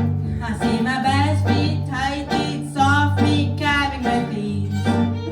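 Acoustic string band playing: guitar strumming over steady low bass notes, with a wavering melody line on top.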